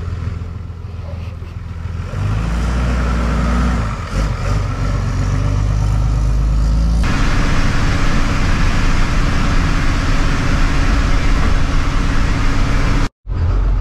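Step van driving: its engine gets louder as it pulls up close about two seconds in. From about halfway, steady engine and road noise are heard from inside the cab, cut off for an instant near the end.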